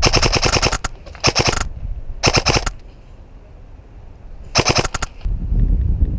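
Airsoft electric rifle firing four short full-auto bursts, each a fast rattle of shots, the first and longest about a second. A low rumble follows near the end.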